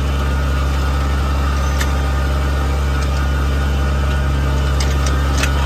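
Tractor engine running steadily while pulling a disc harrow through a field, a constant low drone with a few light clicks and rattles.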